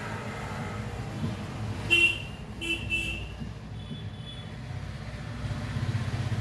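Three short vehicle horn toots about two to three seconds in, with a fainter one just after, over a steady low rumble.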